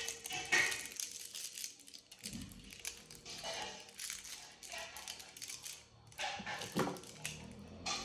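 Rustling and crinkling of thin wires and the crinkly foil shield of a stripped network cable as they are handled and twisted by hand, in irregular bursts.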